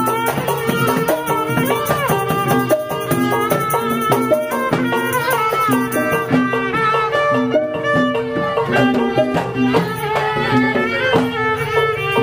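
Betawi ondel-ondel street music played live: a tehyan (two-string spike fiddle) carries the wandering melody over a kecrek rattle and a small gong, with a short pitched note repeating about once a second.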